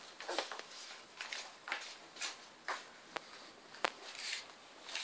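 Three-week-old miniature bull terrier puppies scuffling and play-fighting: small paws and claws scrabbling on the floor and blanket in short scrapes about every half second, with one sharp click near four seconds in.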